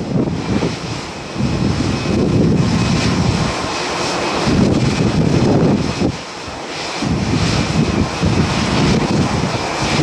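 Airliner jet engine running with a faint steady whine, under heavy wind buffeting the microphone in uneven gusts that briefly drop off about a second in, near the middle and again a little past halfway.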